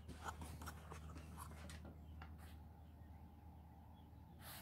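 Near silence: a faint steady low hum, with a few soft clicks and taps in the first two seconds.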